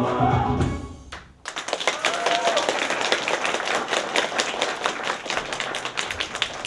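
Dance music ends about a second in, and after a short pause an audience breaks into steady applause.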